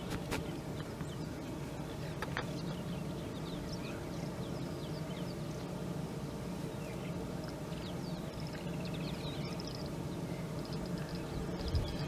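Background birdsong: assorted small birds chirping and whistling, scattered short calls throughout, over a steady low hum. A couple of faint clicks come early in the first few seconds.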